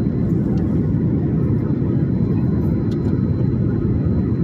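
Steady low roar of an airliner's engines and airflow, heard inside the passenger cabin.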